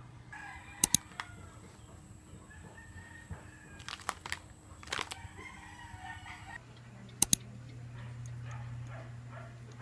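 A rooster crowing in the background. Over it come a few sharp clicks or taps: a pair just under a second in, a cluster about four to five seconds in, and two more a little after seven seconds.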